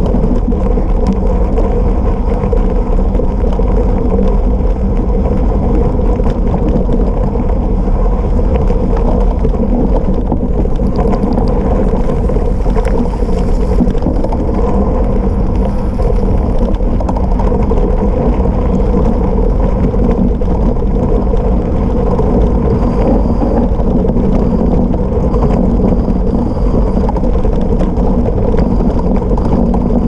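Gravel bike descending a rough gravel road at speed: a loud, steady rumble of its 700x40C Maxxis Rambler tubeless tyres on gravel and the bike rattling, with wind buffeting the microphone.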